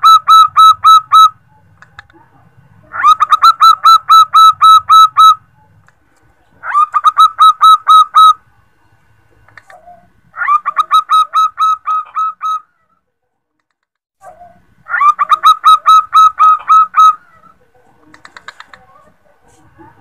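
Female zebra dove (perkutut) calling to a male with a staccato cooing call. Its bouts of about ten quick, clipped notes each last about two seconds, repeated five times with short pauses, and a few fainter notes come near the end.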